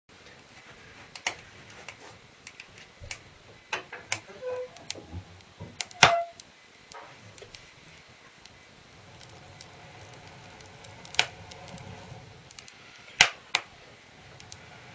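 Kindling being loaded into the firebox of a cast-iron Ulabrand wood stove: irregular wooden knocks and clatter, with a loud metal clank that rings briefly about six seconds in. In the last few seconds a faint crackle rises as the fire catches.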